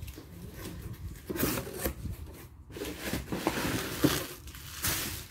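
Hands opening a cardboard shipping box and pulling out plastic bubble wrap: a run of short, irregular scraping, tearing and rustling noises.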